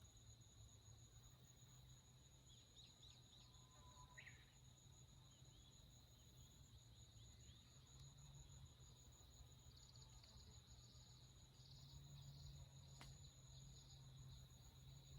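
Faint forest ambience: scattered soft bird chirps and twitters over a steady high-pitched hum, with a single click near the end.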